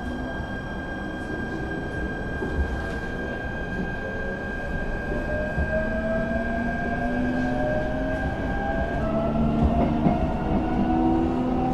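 Electric commuter train heard from inside the carriage as it pulls away and gathers speed: the traction motor whine rises slowly in pitch over a steady rumble of running gear. A steady high tone stops about nine seconds in.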